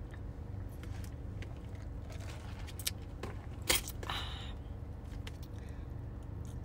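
Steady low hum of a car idling, heard from inside the cabin, with a few light clicks and a short hiss about four seconds in.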